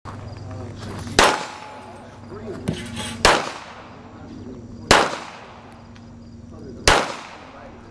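Four pistol shots fired at a steady pace about two seconds apart, each with a short ringing tail, and a smaller sharp knock between the first two shots.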